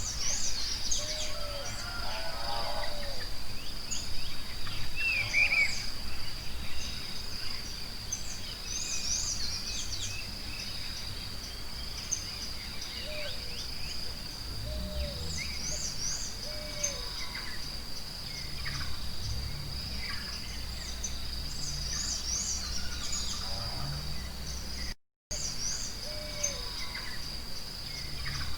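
Forest ambience: many birds chirping and calling over a steady, high-pitched insect drone, with a low rumble underneath. The sound cuts out completely for a moment near the end.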